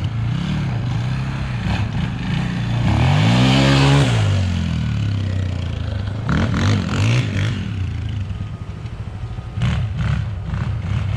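Polaris 525 quad's engine running and revving at varying speed, with its pitch climbing to a strong rev about three to four seconds in and dropping back, then smaller revs later on.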